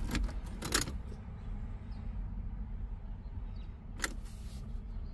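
A few sharp clicks from the starter of a 6.0 LS V8 swapped into a BMW E36 as the key is turned, with no cranking: the starter clicks but does not turn the engine over. The owner suspects a seized or dead starter motor, or oil-caked starter grounds. The clicks sit over a steady low rumble.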